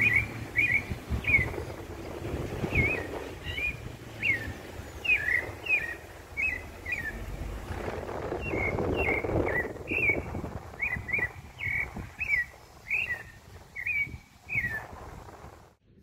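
Pale-breasted thrush (sabiá-barranco, Turdus leucomelas) singing a long run of short, clear, slurred notes, about two a second, over a low background rumble that swells in the middle.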